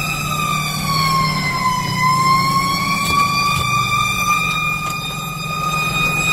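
Fire engine siren wailing, heard from inside the cab: a steady high tone that sags in pitch about two seconds in and slowly climbs back. The truck's engine rumbles low underneath.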